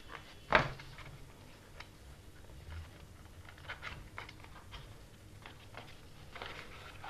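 Hands handling a small cardboard box. There is one sharp tap about half a second in, then light clicks and scrapes as the box is turned over, and a short rustle near the end as its end flap is pulled open.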